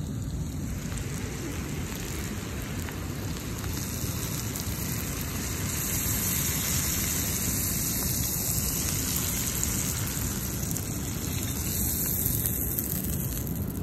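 Hot butter sauce and onions sizzling in a cast iron skillet as it is tipped and poured over a cooked steelhead fillet: a steady crackling hiss that grows louder through the middle.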